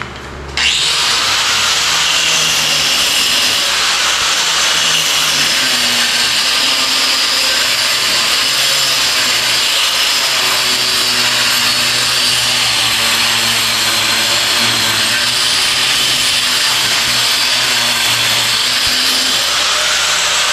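Electric angle grinder starting up about half a second in and then running steadily as its disc cuts into a concrete hollow block, with a loud gritty hiss.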